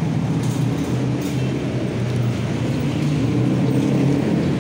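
Steady low rumble of road traffic passing close by.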